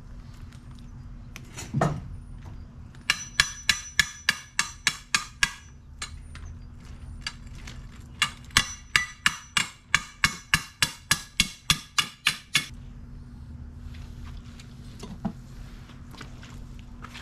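Hammer blows on the metal fork of a rotisserie spit, in two quick runs of about four ringing strikes a second with a pause between.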